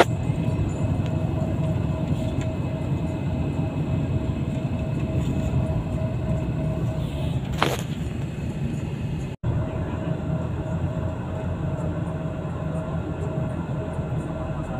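Steady low rumble of engine and road noise heard from inside a moving bus, with a faint steady whine running through it. A brief rustle about eight seconds in, and the sound drops out for an instant just after.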